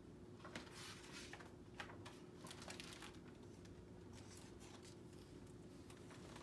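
Faint rustling and soft ticks of a picture book's paper pages being turned and handled, dying away after about three seconds, over a faint steady room hum.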